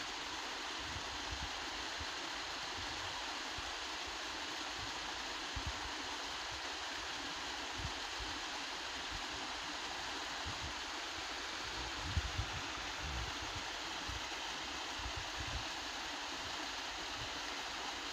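Small waterfall spilling into a rocky forest stream pool, a steady rush of falling and flowing water. A few brief low thumps come through, the most noticeable about twelve seconds in.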